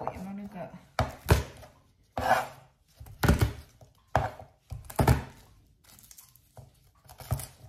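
Chef's knife chopping garlic cloves on a plastic cutting board: about seven separate sharp knocks at irregular intervals, some in quick pairs.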